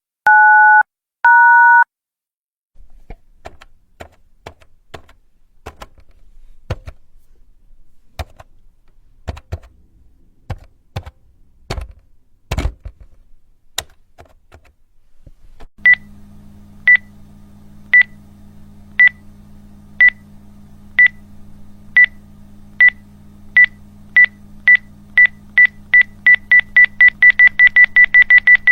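Phone keypad sounds: a few two-tone touch-tone dialing beeps, then a run of irregular plastic button clicks, then short high electronic beeps over a steady low hum that start about once a second and speed up steadily toward the end.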